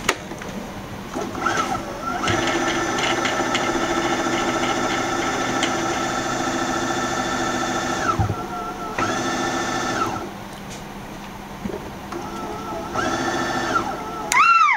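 Electric sewing machine motor driving the bobbin winder to fill a bobbin, a steady whine that starts and stops sharply: one long run of about six seconds, then two short runs of about a second each.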